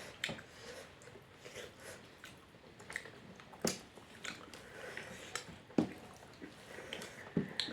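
A person eating fish curry close to the microphone: chewing with irregular wet mouth smacks and clicks.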